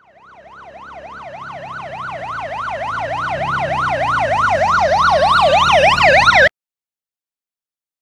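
Emergency vehicle siren in a fast yelp, its pitch sweeping up and down about three times a second and growing steadily louder, with a low rumble under it; it cuts off suddenly near the end.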